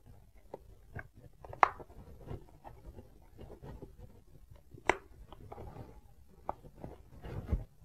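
Foam-and-fabric cheek pad of an AGV Stealth SV helmet being worked into the shell, soft rustling and scraping with sharp snaps as its pop studs are pushed home, the two loudest about a second and a half and five seconds in.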